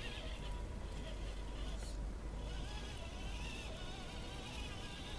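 Small electric motor and gearbox of a radio-controlled Tamiya Toyota Tundra whining as the truck drives off with its car-transport trailer, the whine thinning out about two seconds in.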